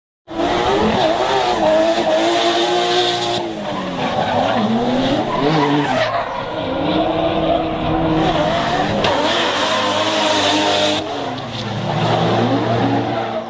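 A drifting car's engine revving up and down over the squeal and hiss of its sliding tyres. The tyre noise falls away for a few seconds around the middle and then comes back.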